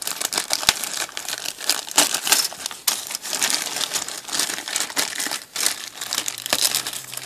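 Thin clear plastic bag crinkling continuously as hands handle it and open it to get at the plastic model-kit sprues inside, in a dense run of small crackles.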